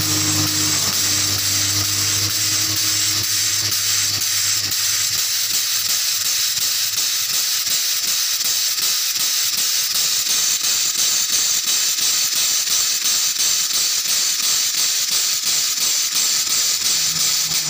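Air-over-hydraulic bottle jack's air-driven pump running: a loud hiss of compressed air with a fast, even pulsing as it pumps the ram up under a tractor's rear axle. The hiss cuts off suddenly at the end as the air valve is shut.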